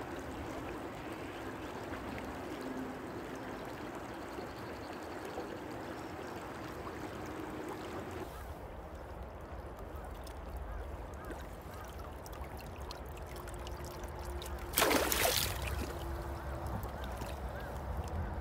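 Shallow river water running over rocks, with one brief loud splash in the water about fifteen seconds in.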